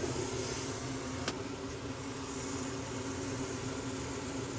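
Steady mechanical hum of a small motor or fan running, with one short click about a second in.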